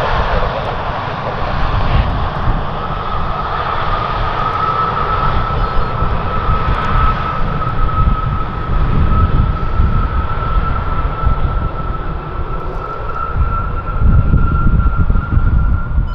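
Embraer E195 jet's twin General Electric CF34-10E turbofans running as it rolls along the runway. A steady fan whine sets in a few seconds in and rises slowly in pitch over a deep rumble that swells near the end.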